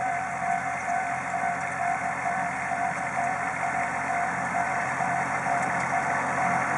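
Compact farm tractor's engine running steadily with a steady whine while it pulls a rotary tiller through the soil, growing a little louder toward the end as it comes closer.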